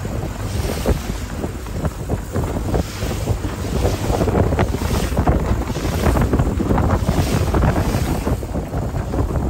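Wind buffeting the microphone over the rush of water churning past a small outboard boat under way, the sound of trolling in open sea.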